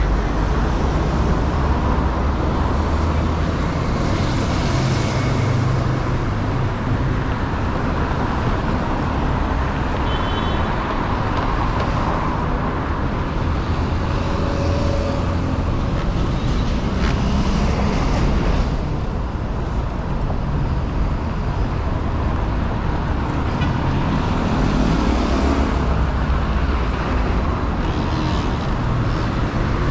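Busy city street traffic: a steady rumble of car engines and tyre noise, with vehicles swelling louder as they pass. About three quarters of the way through, one engine rises in pitch as it accelerates.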